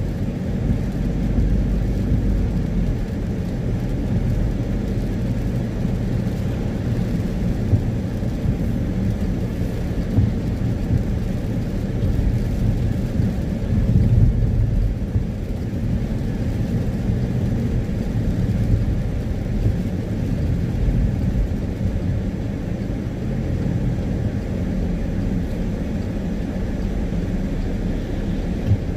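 Steady low rumble of a car driving on a wet road, heard inside the cabin: engine hum and tyre noise on wet tarmac.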